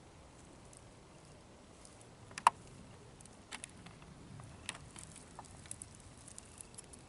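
Handling noise: scattered small clicks and taps, with one sharp click about two and a half seconds in and a run of lighter ticks after it.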